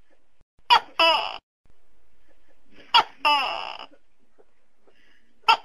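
Tokay gecko calling 'to-kek' three times, about every two and a half seconds. Each call is a short sharp note followed by a longer note that falls in pitch; the third call is cut off near the end.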